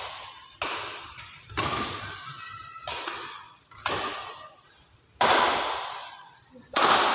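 Badminton rackets smacking a shuttlecock back and forth in a rally: about six sharp hits roughly a second apart, each ringing on in the hall's echo.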